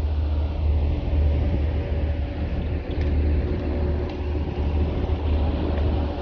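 Boat engine running steadily under way: a low, continuous rumble with a faint hum and an even hiss over it.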